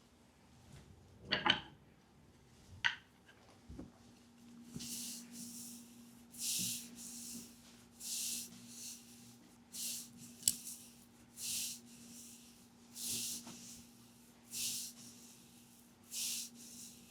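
Massage strokes rubbing over the skin of a leg, a regular swish about every second and a half, starting a few seconds in. Before them, two short sharp sounds.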